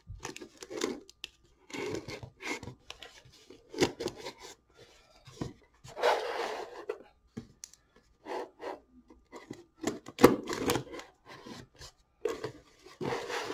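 A cardboard shipping box being handled and cut into with a folding knife: irregular scrapes, rubs and knocks against the cardboard, with a longer scrape about six seconds in and a few sharp knocks around ten seconds in.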